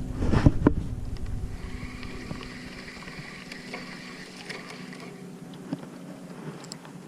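Wind buffeting the microphone aboard a small boat: gusty and loudest in the first second, with a couple of knocks, then dropping to a quieter steady hiss.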